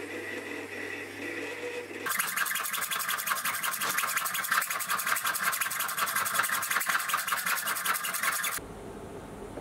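A Sieg C3 mini lathe runs steadily while a parting tool cuts into a 12L14 steel bar. About two seconds in, this gives way to a hacksaw sawing back and forth through the steel part clamped in a vise, a dense rasping that stops about a second before the end.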